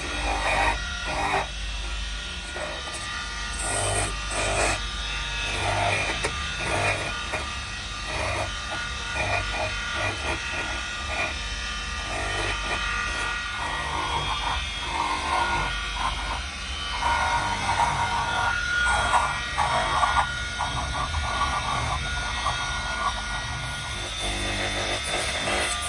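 Flexible-shaft rotary carving tool running with a steady hum, its burr grinding into a small wooden carving in short, uneven bursts as it touches the wood.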